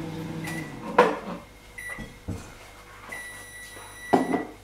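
LG microwave oven finishing its cycle: its running hum stops less than a second in with a loud clunk, then the oven gives short end-of-cycle beeps and one longer beep at a steady high pitch. Another loud clunk comes near the end.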